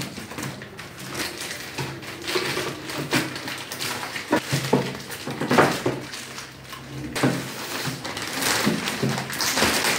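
Clear plastic packaging wrap crinkling and rustling irregularly as it is handled and pulled off a plastic chair seat.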